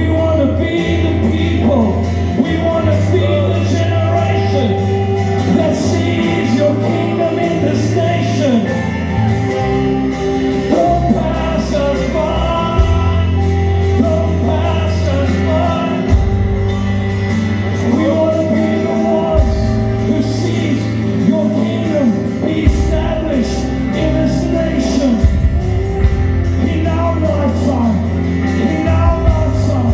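Worship music: held bass chords that change every few seconds, with a voice singing freely over them and no clear words.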